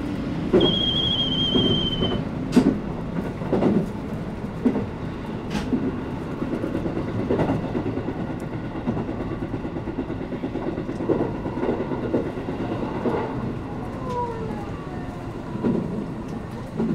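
Electric commuter train running, heard from inside the carriage: a steady rumble with the clicks of wheels over rail joints. About half a second in, a high, slightly falling squeal rings for a second and a half.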